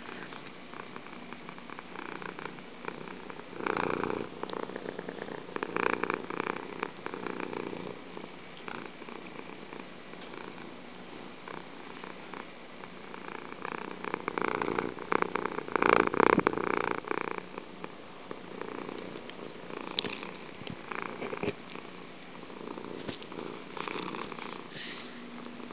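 Domestic cat purring loudly and continuously, the purr swelling louder several times.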